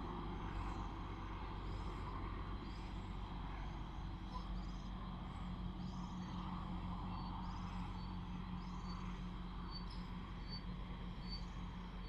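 Outdoor ambience: a steady low hum under a series of short, high chirps that come about once a second and fall into a regular beat near the end.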